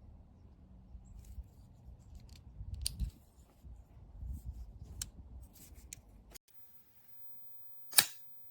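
Metallic clicks from a flipper folding pocket knife being handled: several light clicks over faint handling noise, then the background cuts out and one sharp, loud click comes near the end.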